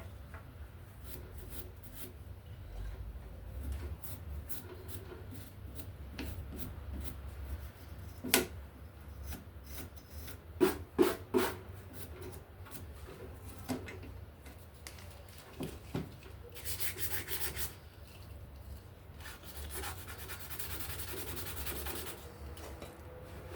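Hand rubbing and scrubbing on paint spray gun parts during cleaning, with scattered clicks. Sharp knocks come once about eight seconds in and three times about eleven seconds in, and later there are two stretches of hissy, high-pitched scraping.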